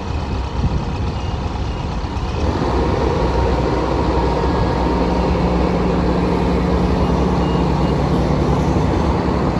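Diesel engine of a BOMAG asphalt paver running steadily, rising in revs and getting louder about two and a half seconds in. A few short, faint high beeps sound early on and again near the end.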